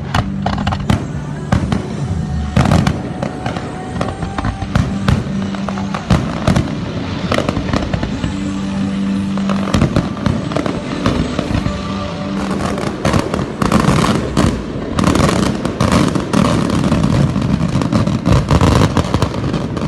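Fireworks going off: a dense run of sharp pops and crackles that grows busier in the second half, over background music.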